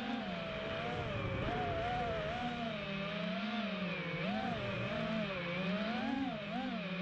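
FPV racing quadcopter's electric motors and propellers whining, the pitch rising and falling constantly with the throttle. A low rushing noise comes in about a second in and fades by halfway.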